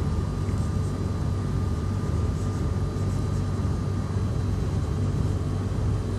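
Steady low hum and rumble of room background noise, with faint scratches of a marker writing on a whiteboard.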